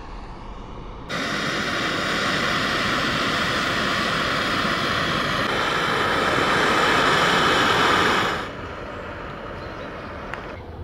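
Small canister gas stove burning under a pot of water: a steady hiss of the burner flame that starts abruptly about a second in and fades out about eight seconds in.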